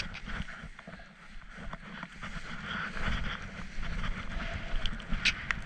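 Skis sliding and hissing through chopped-up powder snow on a steep descent, with wind rushing over the camera's microphone. A few sharp clicks about five seconds in.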